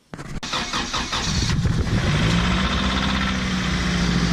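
Car engine cranked on the starter, catching within about half a second, revving briefly and settling into a steady idle.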